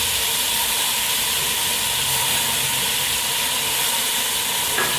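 Shredded cabbage, carrot and capsicum sizzling steadily in hot oil over high heat, an even hiss.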